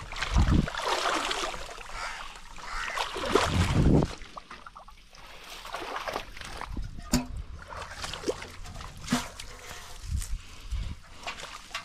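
Water splashing and sloshing, heaviest over the first four seconds, then lighter with a few sharp knocks.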